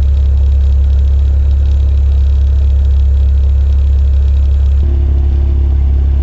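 Honda Civic's engine idling steadily while warming up, a constant low hum; about five seconds in, a couple of steadier higher tones join it.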